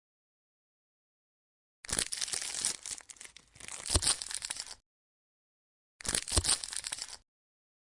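Plastic crinkling and clicking from toy playset pieces and packaging being handled, in two short stretches, each starting and stopping abruptly with dead silence before and between them. A few sharp clicks stand out in the first stretch.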